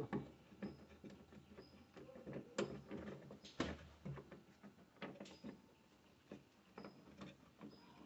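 Faint scattered clicks and light plastic knocks from a hand working behind a refrigerator's plastic lamp cover, turning the light bulb in its socket.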